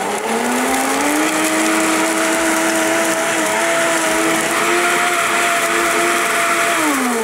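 Countertop blender motor running, blending ice, red currants and milk into a smoothie. Its pitch rises over the first second as the motor comes up to speed, holds steady, then drops away near the end as it winds down after being switched off.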